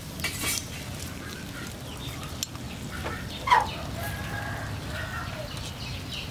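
Chickens clucking, with one loud, sharp call about three and a half seconds in and fainter calls after it.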